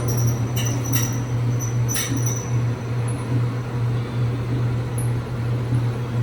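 Samsung DV50K8600EVA3 electric dryer running with its drum turning, a steady low hum with high squeaks and chirps that come and go, most in the first couple of seconds. The squeak is one the repairer blames on lint wearing the idler pulley and drum wheels.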